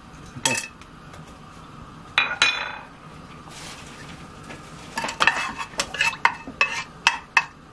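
Whole spices dropped into hot coconut oil in an aluminium pressure cooker, with a ringing clink about two seconds in and a faint sizzle. From about five seconds in, a wooden spatula stirs them, knocking and scraping against the metal pot several times a second.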